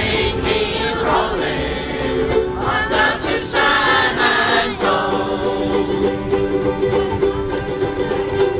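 A large group of ukuleles strumming together, with voices singing along.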